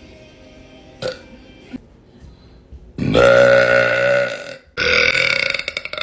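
A woman's long, loud burp about three seconds in, holding a fairly steady low pitch for over a second, followed almost at once by a second, more ragged burp. A sharp click is heard about a second in.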